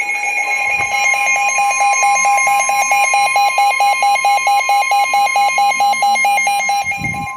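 Emergency Alert System alert tones before a severe thunderstorm warning message: loud electronic tones, one held steady and another beeping rapidly at about five beeps a second. The beeping stops near the end.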